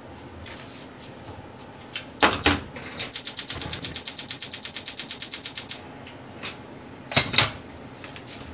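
Kitchen handling sounds: two loud knocks, then a rapid run of even, sharp clicks, about ten a second, lasting nearly three seconds, and two more knocks near the end.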